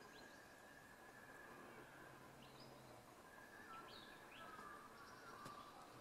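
Faint dawn birdsong: scattered short chirps and quick up-and-down whistled notes from several birds over a steady, faint background.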